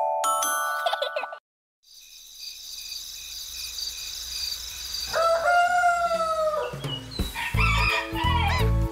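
A short chime on glockenspiel-like mallet bells ends about a second in, followed by a moment of silence and a soft high steady tone. A rooster then crows once, a long call, as the wake-up signal of the morning theme, and upbeat children's music with a beat starts near the end.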